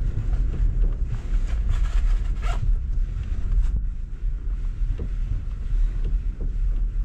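Steady low rumble of a pickup truck driving over a sandy dirt trail, with wind buffeting the microphone. A few short clatters come between about one and a half and two and a half seconds in.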